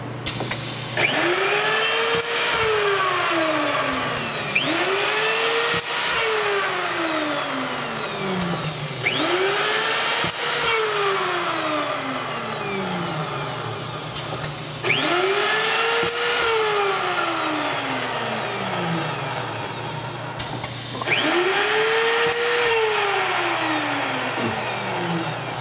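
Hoffmann MU-2 pedal-operated dovetail key router running five cycles. Each begins suddenly, with the cutter's pitch rising quickly and then falling slowly as it winds down, about every five seconds, over a steady low hum.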